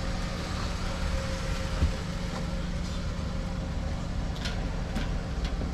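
Steady low hum of an idling vehicle engine, with a single light knock about two seconds in.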